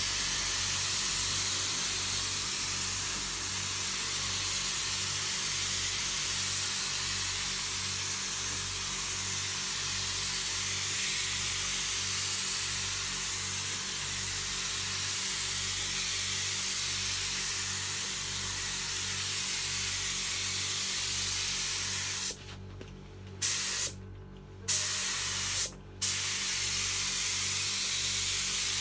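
Gravity-fed paint spray gun with a 1.8 mm tip spraying primer, a steady hiss of air and atomised paint. Near the end it cuts out three times as the trigger is released, with a sharp burst each time it opens again. A low pulsing hum runs underneath.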